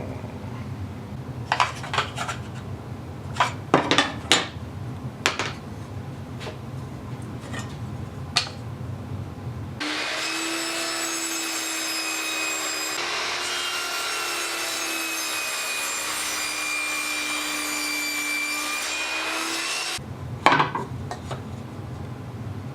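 Wooden knocks and clicks as small pieces of wood are handled. About ten seconds in, a small power tool starts and runs at a steady high pitch for about ten seconds, then cuts off, followed by one more knock.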